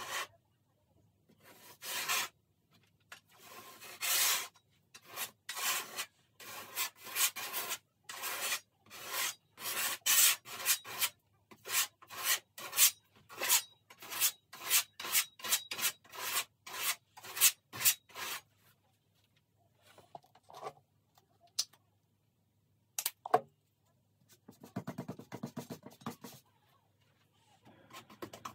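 Painting tools rubbing and scraping across a stretched canvas in quick, repeated strokes. The strokes stop for a few seconds, a single sharp tap comes about two-thirds of the way through, and then a palette knife scrapes across the surface.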